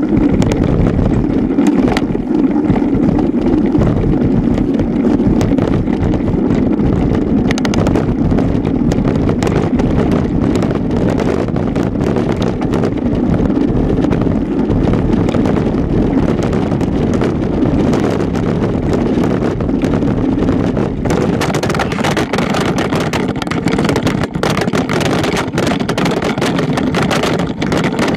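Wind buffeting the microphone of a camera on a mountain bike riding fast over a dirt road, with the bike's rolling and rattling over the rough surface. From about three-quarters of the way through come dense clicks and knocks, as the camera, its mount broken, knocks against the bike.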